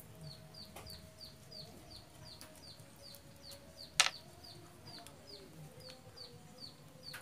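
A chick peeping in a steady series of short, high, falling calls, about two or three a second. A single sharp click about four seconds in is the loudest sound.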